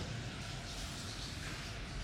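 Soft rubbing and swishing, a couple of smooth strokes with no sharp cracks, over a steady low hum.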